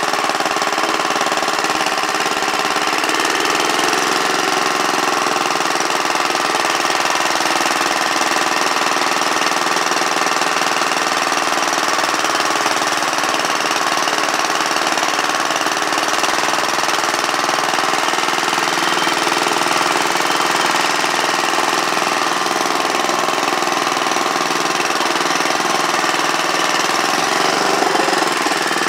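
Wheel Horse garden tractor's single-cylinder engine running steadily while the tractor is driven.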